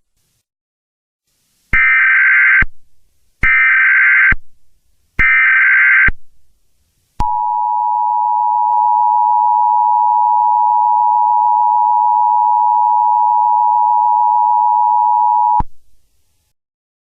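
Emergency Alert System alert tones: three short bursts of SAME header data, each about a second long, followed by the EAS two-tone attention signal held steady for about eight seconds before it cuts off.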